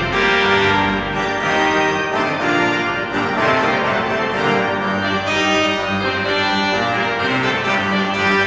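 Pipe organ playing full, sustained chords that change every second or so.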